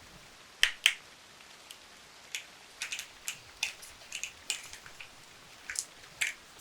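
Small sharp clicks and ticks from handling the small scent bottles for the next smell, about fifteen of them, irregular and some in quick pairs, over a faint steady hiss.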